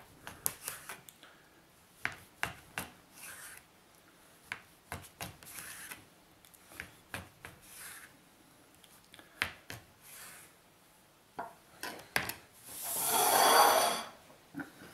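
Kitchen knife slicing a jam-filled sponge roll on a plastic cutting board: short rubbing sawing strokes and light clicks of the blade meeting the board, coming irregularly. Near the end a louder scrape lasts over a second.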